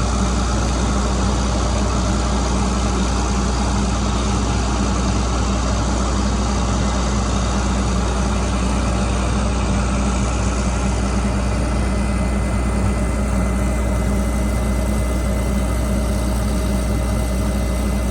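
John Deere 9760 combine's diesel engine idling steadily.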